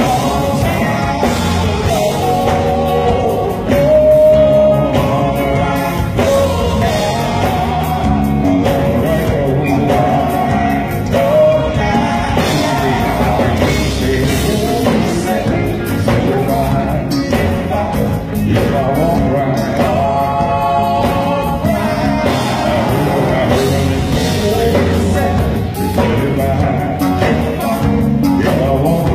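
Male gospel vocal group singing live, lead and backing voices together, over a band with electric guitar.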